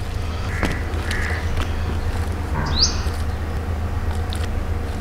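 Birds calling outside: two short calls about a second in and a quick rising chirp near the middle, over a low steady hum. There are faint soft taps as whole tomatoes are set into a pressure cooker of sliced onions.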